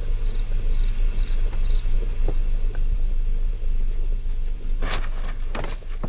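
Crickets chirping about twice a second over a steady low hum, the chirping fading out about halfway. A few sharp knocks come about five seconds in.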